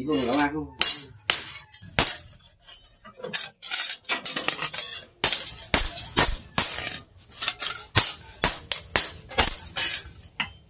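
Hand hammer striking a steel sword blade on a small steel stake anvil: sharp metallic blows with a ringing clang, coming irregularly two or three a second, with a quick flurry about halfway through.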